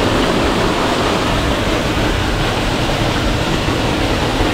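Loud, steady rush of falling water from a waterfall in a mountain stream.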